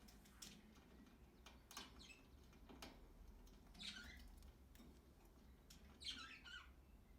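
Budgerigars chirping faintly: a few short squawky calls, the clearest about four and six seconds in, among scattered light clicks.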